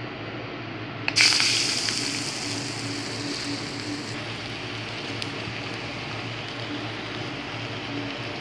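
Falafel frying in hot oil: a sudden loud hiss about a second in that eases into a steady sizzle.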